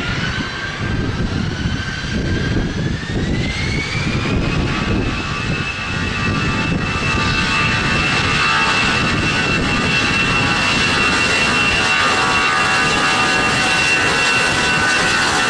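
The two CFM56 turbofans of an Airbus A320-214 spooling up to takeoff thrust for the departure roll. A whine rises over the first four seconds or so, then holds as a steady high whine over the loud, even engine rumble.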